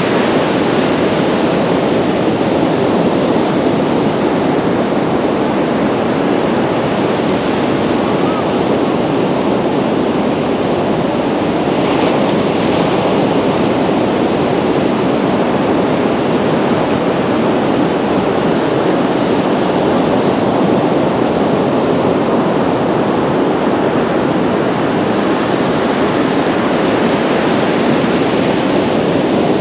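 Sea surf washing onto the beach, a steady noise with wind buffeting the microphone.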